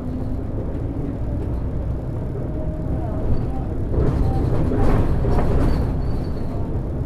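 Volvo B12BLE bus with its DH12E diesel engine running on the move, heard from the driver's seat as a steady low drone of engine and road noise. It grows louder and fuller for a couple of seconds from about four seconds in, with a few faint short squeaks.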